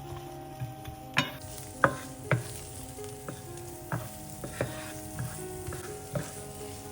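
Food sizzling in a frying pan while it is stirred, with several sharp knocks of a utensil against the pan. The sizzle sets in just over a second in.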